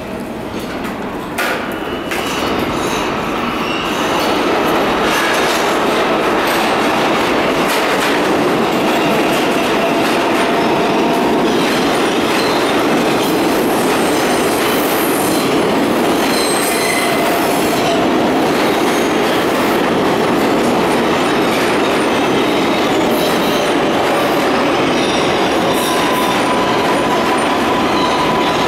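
Kawasaki-built R142A subway train entering an underground station. Its noise builds over the first few seconds as it comes out of the tunnel, then the cars run loudly past along the platform, with wheel squeal coming and going, stronger near the end.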